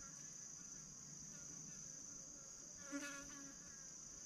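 Steady high-pitched chorus of insects such as crickets, a continuous shrill trill, with a brief faint pitched call about three seconds in.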